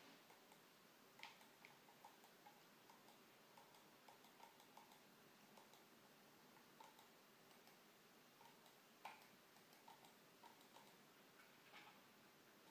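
Faint clicks of a computer mouse button, irregular and sometimes several a second, with a few sharper clicks among them; each click steps the ticket number on the display.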